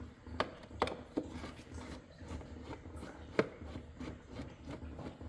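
Handling noise from taking apart the plastic radiator shroud and its fasteners, with a few sharp clicks and knocks: three close together in the first second and a half, a louder one about three and a half seconds in.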